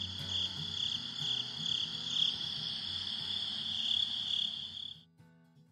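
A steady, high-pitched chorus of night insects trilling, pulsing slightly, over a faint low hum. It cuts off suddenly about five seconds in.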